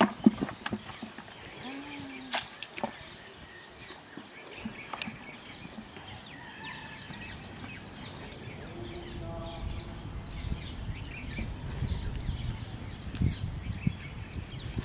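Quiet outdoor background: scattered short bird chirps over a faint low rumble, with a few sharp light clicks in the first three seconds.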